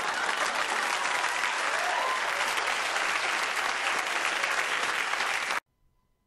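Sitcom studio audience applauding, a dense steady clapping that cuts off abruptly near the end.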